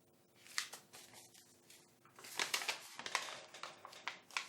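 Handling of small electronic components and their packaging: irregular soft rustling and crinkling with light clicks, busiest in the second half, as resistors are sorted and handled.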